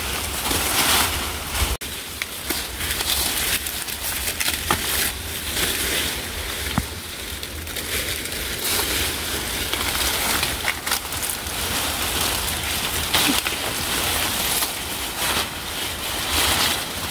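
Rain and splashing water: a steady hiss with many small taps throughout.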